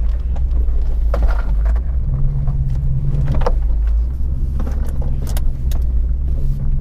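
Jeep Grand Cherokee WJ engine running low and steady as it crawls very slowly over a rough trail, with scattered clicks and rattles a few times.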